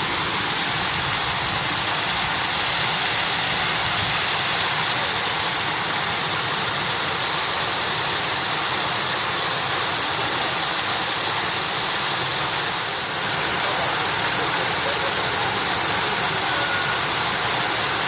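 Steady rushing of Shiraito Falls, a groundwater-fed waterfall, its water falling without a break.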